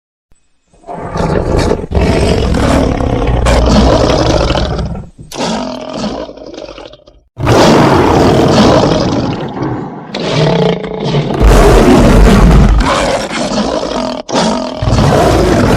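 Big-cat roars used as sabre-toothed cat (Smilodon) sound effects, drawn from lion and tiger roars. After a second of silence come long, loud roars, a quieter growling stretch that stops with a brief break about seven seconds in, then more loud roaring.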